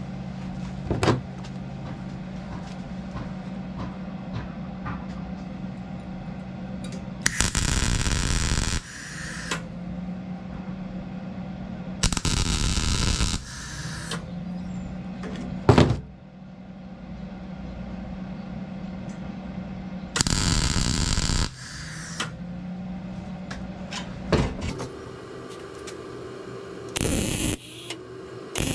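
Welder laying short tack welds on 3/16-inch steel: three crackling hisses of about a second and a half each, then a shorter one near the end. A steady low hum sounds between them, and there are a few sharp clicks.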